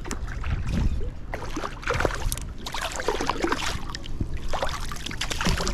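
Creek water splashing and sloshing in irregular bursts as a small smallmouth bass thrashes while being landed.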